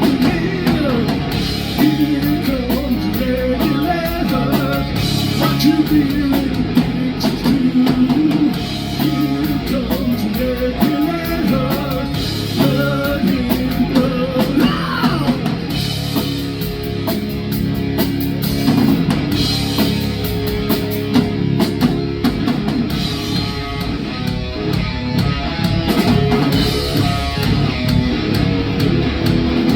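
Live rock band playing an instrumental stretch of a song: electric guitar over bass and a drum kit keeping a steady beat.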